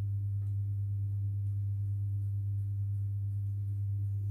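Steady low electrical hum on one deep, unchanging tone, from an electric fan running in the house.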